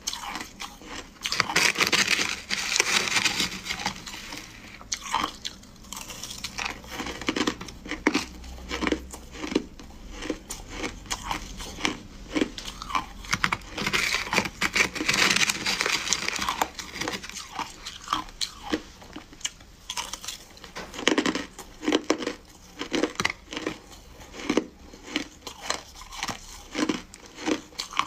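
Close-up crunching and chewing of shaved, refrozen ice, with dense crackling bites throughout. Twice, about two seconds in and again around fourteen seconds, there is a longer, louder stretch of a metal spoon scraping and scooping through the ice in the tray.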